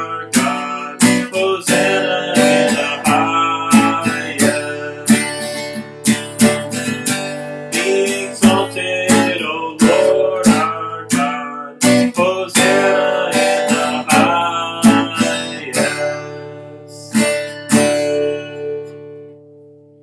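Acoustic guitar strummed in steady chords, about two strums a second, playing the last bars of a worship song. The strumming stops about sixteen seconds in and the final chord rings on and fades away.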